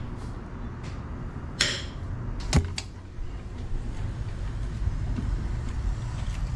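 A few sharp kitchen clicks and knocks, likely from a knife and utensils on a plate and pan, over a steady low hum. The loudest knock comes about two and a half seconds in.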